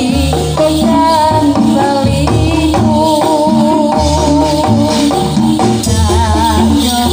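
Javanese gamelan-style accompaniment for a gedruk dance, with a wavering melody line over steady low notes, mixed with a continuous jingling rattle that fits the gongseng bell clusters on the stamping dancers' legs.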